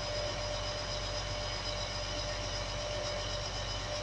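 Caterpillar 966H wheel loader's C11 diesel engine running steadily with a constant whine over it, heard from the cab while the hydraulics slowly raise the bucket.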